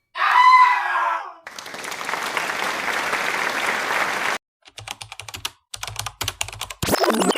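A run of stock sound effects from a video editor's library played back to back. First a short pitched sound, then about three seconds of steady rushing noise, then a quick run of computer-keyboard typing clicks, and near the end a breaking, shattering crash.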